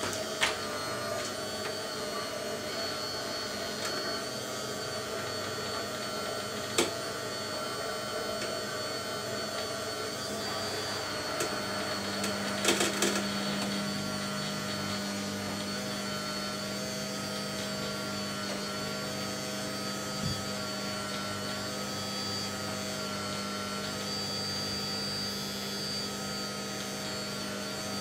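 Hydraulic pump of an RC hydraulic mobile excavator, a scale Caterpillar M322D, running with a steady whine that wavers a little in pitch as the boom and arm move. A lower hum joins about halfway, and there are a few sharp clicks, with a short cluster of them about halfway.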